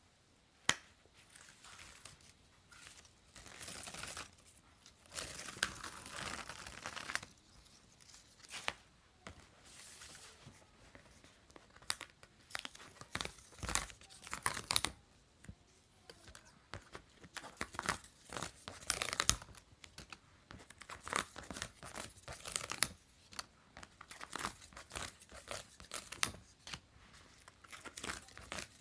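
Paper being torn and crinkled by hand in short, irregular bursts, with occasional sharp clicks.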